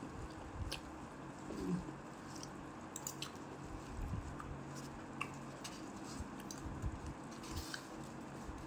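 Chewing, with scattered light clicks and scrapes of a metal fork and spoon against a styrofoam food box. A faint steady hum sits underneath.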